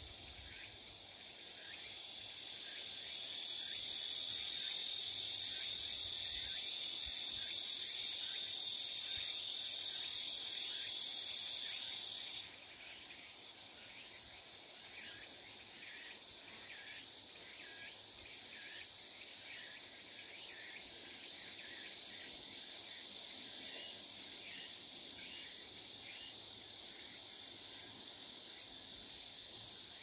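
Late-summer insect chorus. A loud, high, even buzz swells over a couple of seconds, holds, and cuts off suddenly about twelve seconds in. A softer steady insect hum goes on after it, with a short chirp repeating underneath.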